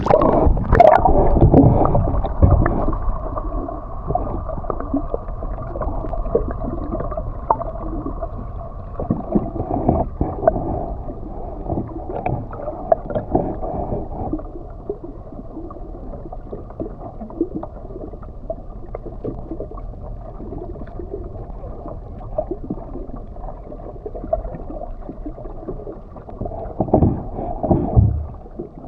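A boat under way: water gurgling along the hull over a steady hum, with scattered knocks. It is loudest in the first few seconds and again in a short burst near the end.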